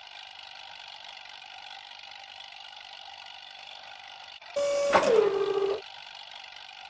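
A steady mechanical hum with many fixed tones. About four and a half seconds in, a louder whine holds one pitch, then drops lower after a click and cuts off about a second later.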